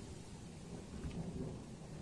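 Rumble of thunder from a weak thunderstorm, low and continuous.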